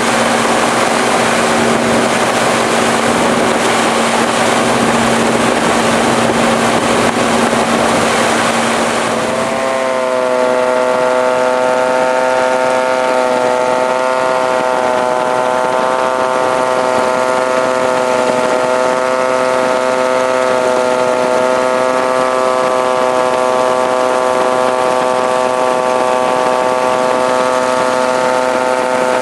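Steady drone of a propeller aircraft's engine heard in flight. About nine seconds in the sound changes: a strong, steady engine tone with a slight waver rises out of the rushing noise and holds.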